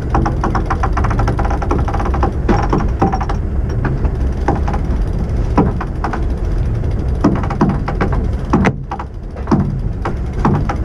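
Wind buffeting the microphone on a sailboat's cabin top: a steady low rumble, with scattered knocks from deck gear and a run of rapid clicking in the first three seconds.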